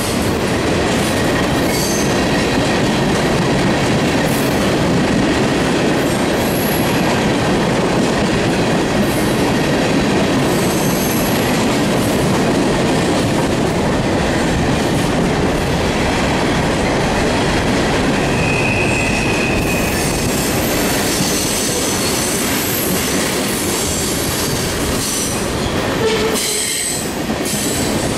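Freight train cars (covered hoppers and a tank car) rolling past close by: a steady noise of steel wheels on rail with a few brief high-pitched wheel squeals.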